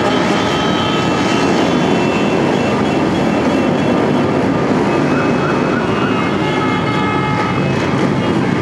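A large group of cruiser and touring motorcycles riding past in a long column, their many engines blending into one steady, dense rumble.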